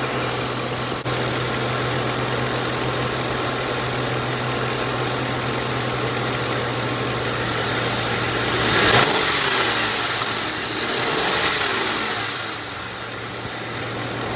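A 2007 Lincoln Town Car's V8 idling, then revved about nine seconds in, bringing on a loud, high-pitched squeal that breaks briefly and cuts off about four seconds later as the revs drop. The squeal comes from a bad idler pulley on the accessory belt, stiff instead of spinning freely.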